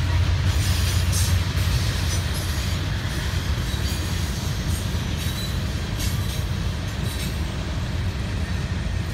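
Freight train cars rolling past: a steady low rumble of wheels on rail, with a few short sharp clicks along the way.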